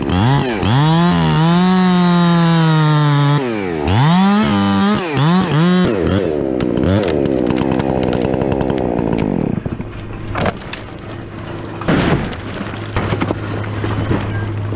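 Chainsaw revving up and down as it cuts, its pitch rising and falling over and over. About two-thirds of the way through it drops to a steady idle, with a few sharp knocks.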